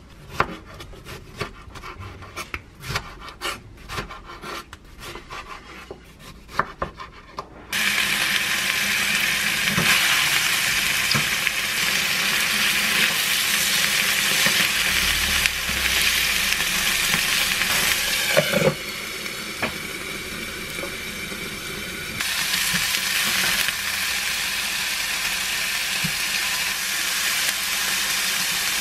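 A knife slicing a tomato on a wooden cutting board, a run of soft irregular cuts. About eight seconds in, this gives way to the steady sizzle of chicken breast pieces frying in a pan over low heat, with a spatula scraping as they are turned.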